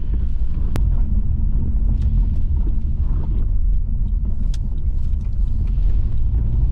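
Subaru Outback driving on a wet gravel road, a steady low rumble of engine and tyres heard from inside the cabin, with a few sharp ticks now and then.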